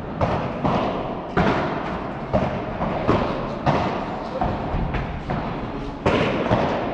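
Padel rally: the ball cracking off paddles and bouncing on the court in quick succession, about ten hits at roughly one every three-quarters of a second, each echoing in a large indoor hall.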